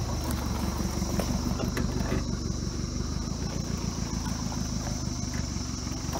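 LDV T60 ute's four-cylinder turbo-diesel engine running steadily at low revs as the ute crawls over rocks on a dirt track, with an even low throb and a few faint clicks.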